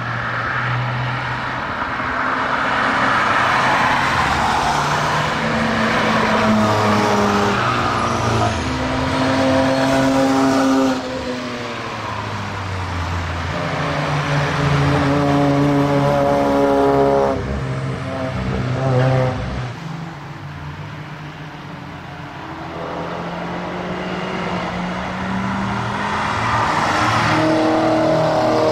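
Road cars, among them a SEAT Leon Cupra, an Opel Astra and a BMW E30, driving past one after another through a corner. Their engines rise and fall in pitch as they brake, shift and accelerate away. The sound changes abruptly a few times as one car gives way to the next.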